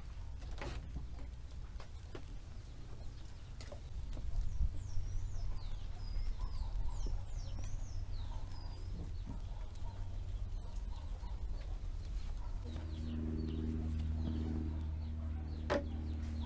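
Chickens clucking, with a small bird's high, wavering chirps for a few seconds in the middle, over a low steady background. A couple of sharp knocks, one just after the start and one near the end, and a low steady hum joins in past the three-quarter mark.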